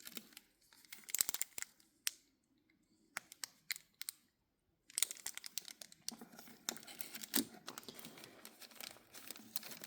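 Faint, irregular crinkling and crackling of cigar cellophane sleeves and packaging as cigars are handled, in small bunches with short quiet gaps between them.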